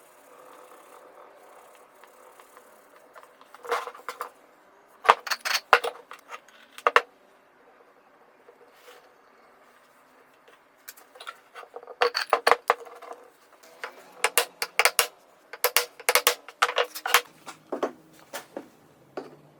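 Irregular clusters of sharp metallic clinks and knocks, with short pauses between the groups, from metal parts or tools being handled.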